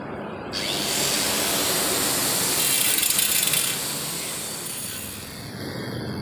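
Angle grinder with a cutting disc slicing through a light-gauge steel channel: it starts about half a second in, is loudest around the middle of the cut, and eases off near the end.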